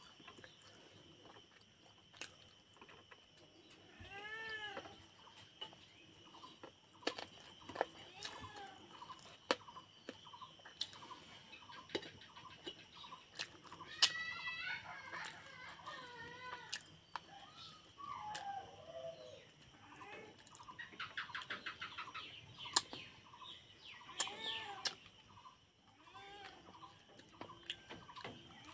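Chickens clucking now and then, a handful of short calls spread through, with light clicks of fingers working rice on a steel plate.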